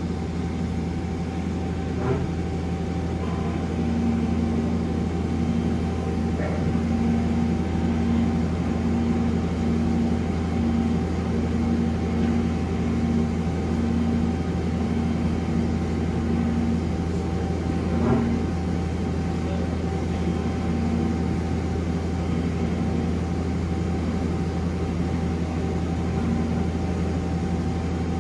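Okuma Captain L-470 CNC lathe running with its spindle turning the chuck: a steady machine hum with a thin constant whine over it. A low pulsing tone repeats roughly once a second through the middle, with a couple of faint clicks.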